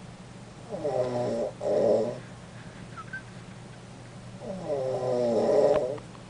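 Domestic cat snoring: two loud snores about three and a half seconds apart, the first broken into two parts.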